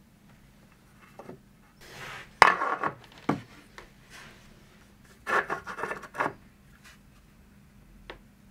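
Hand handling of a small square and a torch on a mitre saw's metal table and fence: a few sharp knocks and light taps with short scraping rubs between quiet stretches, the loudest knock about two and a half seconds in.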